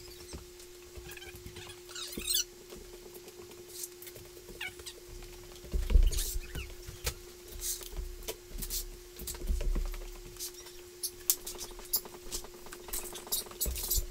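Wooden dowels being slid out from under a sheet of Formica laminate laid on contact cement: scattered clicks and wooden knocks, short scrapes, and a few dull thumps, over a steady low hum.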